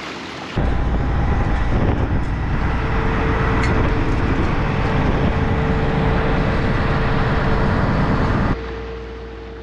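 Diesel engine of a small pusher tug running loud and steady, a deep rumble with a steady whine joining in about two seconds in. It starts and stops abruptly.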